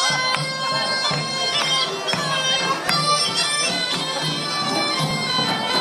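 Folk dance music: a reedy wind instrument playing a held, stepping melody over a steady drum beat.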